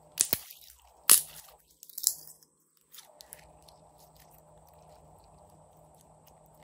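Pink glitter slime squeezed and kneaded between the hands: three loud, crackly squishes in the first two seconds, then a few faint clicks.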